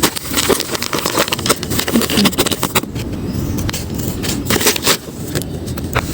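Paper blind bag crinkling and rustling as it is handled and opened, with many sharp crackles.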